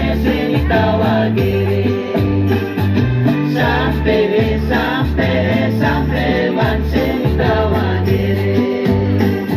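A dolo-dolo circle-dance song: several voices singing together over loud amplified instrumental backing with a steady bass line.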